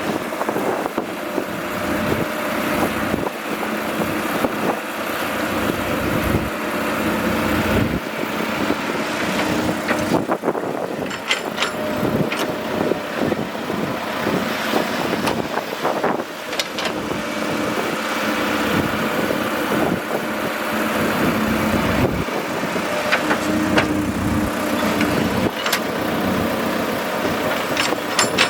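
Excavator's diesel engine running steadily, with a few sharp clicks and knocks now and then.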